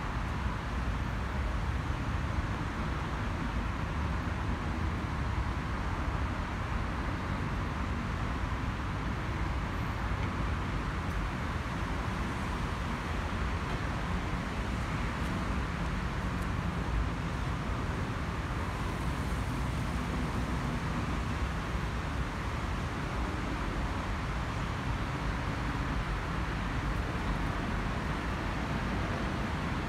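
Distant jet noise from an Airbus A320-216's twin CFM56-5B turbofans as the airliner passes high overhead after departure: a steady, even rumble with a broad hiss and no clear rise or fall.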